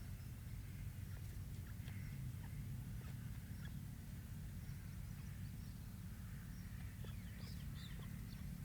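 Young partridge (francolin chick) giving scattered short, faint high calls, thickest near the end, over a steady low rumble.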